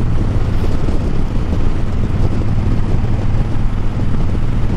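Harley-Davidson Breakout's V-twin engine running steadily as the motorcycle cruises along the road, with wind noise on the microphone.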